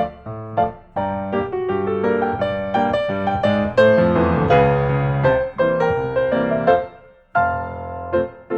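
Background piano music: a quick run of single notes and chords. It breaks off briefly about seven seconds in, then carries on.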